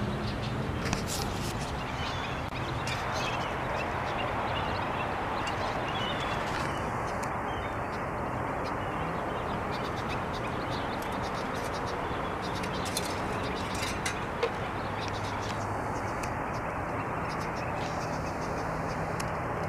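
Steady outdoor background noise, with a few faint bird chirps and scattered small clicks.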